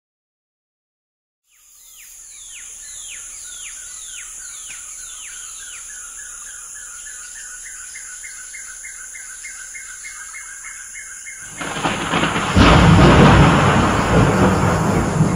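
Outdoor nature ambience fading in: a steady high insect drone, a bird giving a quick series of falling calls, then a rapid repeating call about four times a second. About eleven seconds in, a loud rumble of thunder swells up and slowly fades, drowning the calls.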